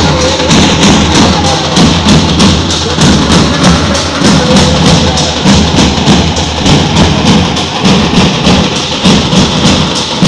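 Loud percussion music for a street procession with a fast, steady beat of about five strokes a second.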